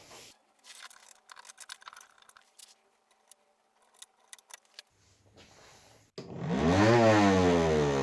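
A few seconds of small clicks and rattles from handling. Then, about six seconds in, a homemade mini table saw's twin DC 775 motors start up suddenly and run its 4-inch circular blade, the whine rising in pitch as it spins up.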